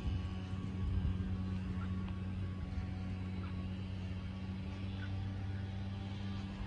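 Cummins 4BT four-cylinder turbo diesel engine idling steadily, a constant low hum with a rough pulse beneath it.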